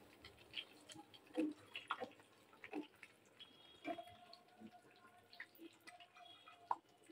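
Faint, irregular taps and clinks of a wire-mesh strainer against a frying pan as fried chicken wings are lifted out of the oil and tipped onto a plate, with light dripping.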